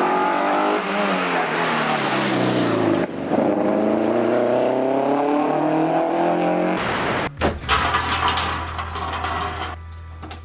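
Rally car engine running hard, its pitch falling and then climbing again as it accelerates. About two-thirds of the way in it cuts off abruptly to a steady low hum with scattered clicks and knocks.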